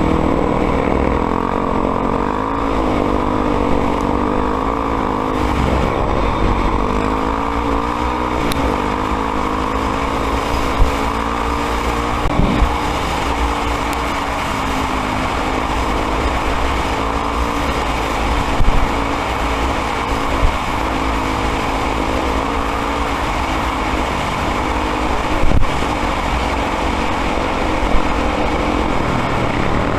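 Honda XR 250 Tornado's single-cylinder four-stroke engine running under riding, the revs rising and falling continuously, with a few brief knocks along the way.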